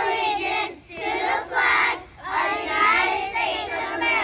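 A class of young children's voices together in unison, in phrases with short breaks between them.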